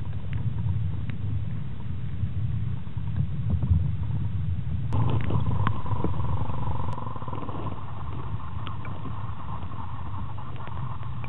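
Underwater low rumble of moving water with scattered small clicks; about five seconds in a steady whine joins and carries on.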